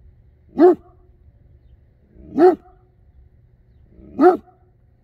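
Great Dane barking: three single barks, evenly spaced a little under two seconds apart.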